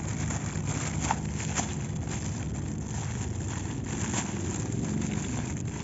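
Thin clear plastic packaging crinkling and tearing as a toy mask is unwrapped by hand, with a few sharp crackles about a second in, a second and a half in and near four seconds. A steady low hum runs underneath.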